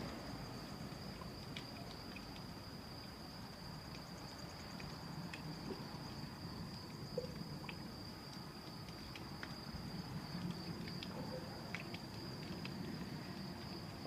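Crickets trilling at night in one steady, unbroken high band, with scattered short high chirps and ticks over it and a faint low rumble underneath.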